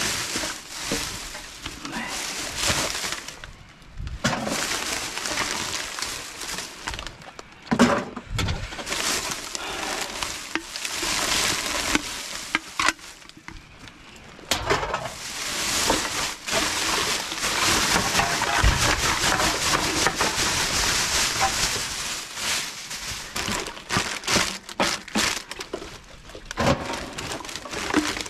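Rummaging through rubbish bags in a dumpster: bags rustle and crinkle, and items knock and clatter as they are shifted and tossed, with a few sharper knocks, the loudest about eight seconds in.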